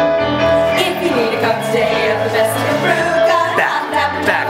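A 1940s-style song playing, with women's voices singing a melody over the music.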